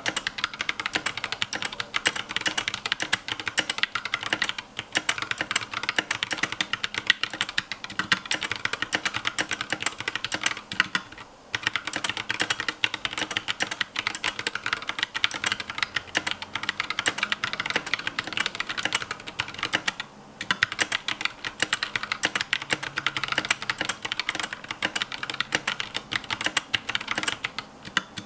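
Fast, continuous typing on a Massdrop Alt mechanical keyboard with Holy Panda and Zealios V2 65g tactile switches: a dense stream of key clicks, broken by a few brief pauses.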